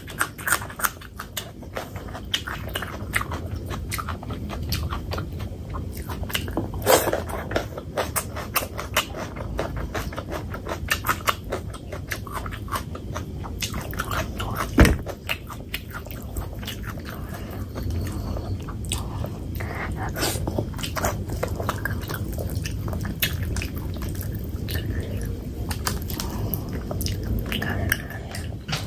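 Close-miked chewing and biting of fatty pork belly curry with rice and a raw green chili, eaten by hand, with many wet mouth clicks and smacks. Two sharper, louder clicks come about 7 and 15 seconds in.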